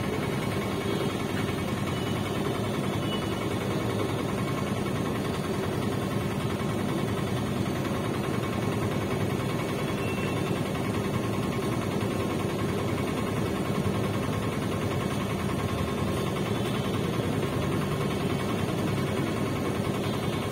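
Steady rumble of road traffic and a moving vehicle, without breaks or distinct events.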